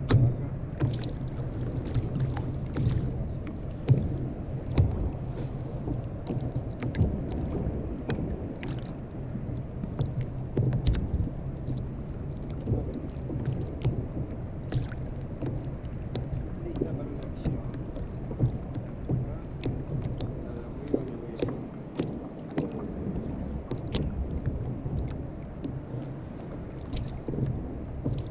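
Water sloshing against a sit-on-top kayak hull over a steady low hum, with wind on the microphone. Many small sharp clicks and knocks come from hands working a hook and bait close by.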